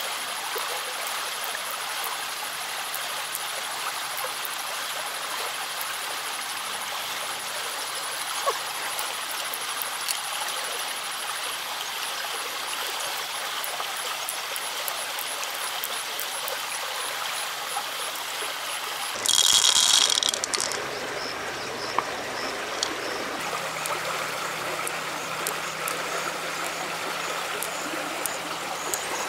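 Steady rush of running river water, with a few faint clicks. About two-thirds of the way through comes a brief, loud, high-pitched sound lasting about a second.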